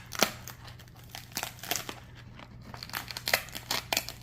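The dry, brittle skin of a fully dried, unsoaked loofah gourd cracking and crunching as it is peeled away by hand, in a string of irregular crackles.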